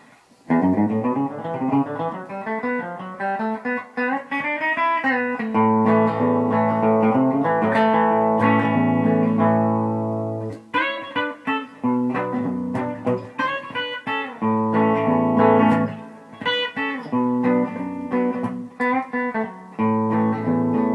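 Gibson ES-359 semi-hollow electric guitar played through a pedal chain that includes a Bearfoot Pale Green Compressor, into a Port City amp with a 10-inch speaker. It opens with quick rising runs of notes, moves to held ringing chords, and from about halfway plays shorter chord stabs with brief pauses between them.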